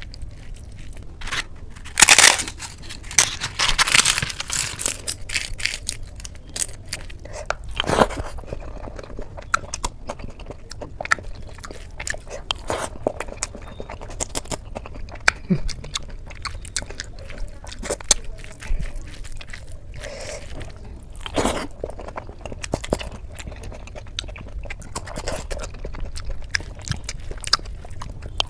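Close-miked eating sounds: a hand mixing rice with dal and vegetables in a steel bowl, and chewing with sharp crunches now and then.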